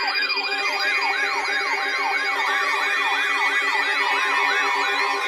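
Electronic siren-style alert tone from an emergency broadcast, its pitch sweeping up and falling about three times a second over a steady chord of lower tones. The sweeps grow weaker near the end.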